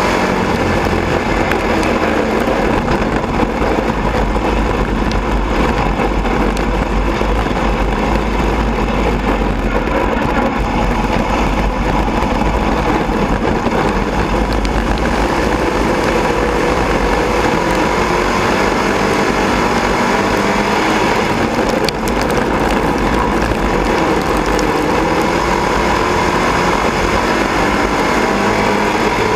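Sport Modified dirt-track race car's V8 engine, heard from inside the cockpit, running steadily at part throttle with small rises and falls in pitch as the car rolls slowly in the pack.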